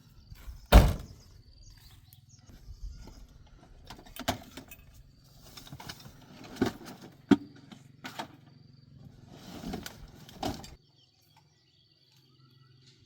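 Hand-tool work on a plough: a series of irregular knocks and clanks, the loudest about a second in, over a steady low hum that cuts off abruptly near the end.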